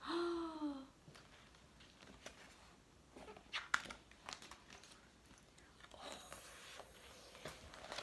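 A short vocal sound gliding down in pitch, then quiet paper rustling and light clicks as the pages of a picture book are handled and turned.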